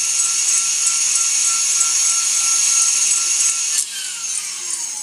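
KitchenAid stand mixer running fast with its wire whisk, whipping egg whites with added sugar toward stiff peaks: a loud, steady motor whine and whisk hiss. About four seconds in the level drops and a falling whine follows as the mixer slows.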